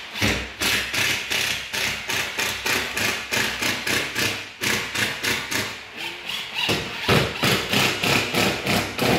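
Cordless impact driver hammering screws into a plywood bulkhead, in three runs broken by short pauses.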